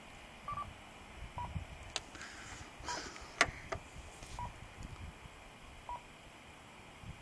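Short high beeps, about one every second and a half, from a Yaesu ham radio transceiver after a call to a repeater for access, with a few sharp clicks, brief bursts of hiss and low handling knocks.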